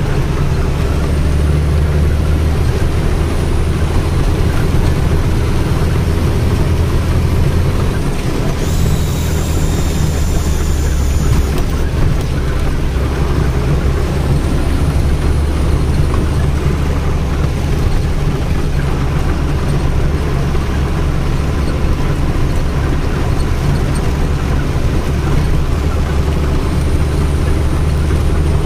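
Tata 3118 truck's diesel engine running steadily at road speed, heard inside the cab, with heavy rain and road spray on the cab. A brief hiss comes in about eight and a half seconds in and lasts about three seconds.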